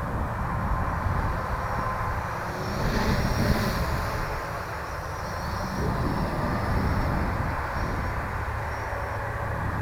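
Small electric quadcopter (Armattan CNC 355) flying, its motors and propellers making a high whine that swells about three seconds in and eases off, over a steady low rumble.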